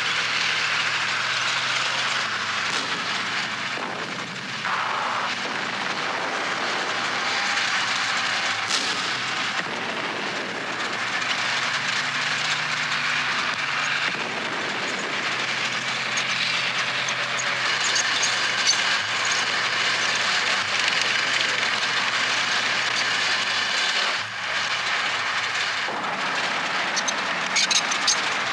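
A heavy vehicle's engine running with steady mechanical clatter and noise, its low tone shifting in pitch now and then; a few sharp clicks near the end.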